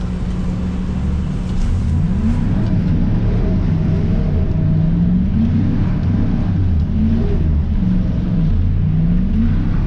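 Dodge pickup's engine heard from inside the cab while the truck spins in snow. It runs steadily at first, then from about two seconds in revs up and down again and again as the gas is pumped on and off.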